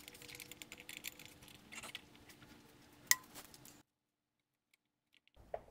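Small metallic clicks and clinks of a screw and screwdriver being handled at an e-bike's battery mount, with one sharper click about three seconds in, over a faint steady hum. The sound cuts out completely for over a second near the end.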